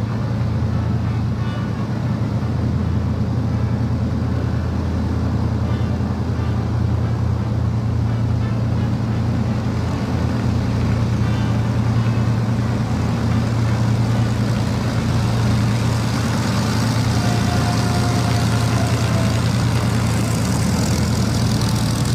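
De Havilland Mosquito's twin Rolls-Royce Merlin V12 piston engines running on the ground with propellers turning, a steady low engine drone that grows a little louder about halfway through.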